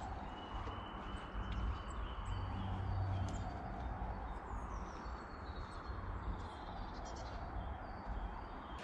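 Small woodland birds calling, with short high chirps and whistled notes scattered throughout, over a steady low background rumble.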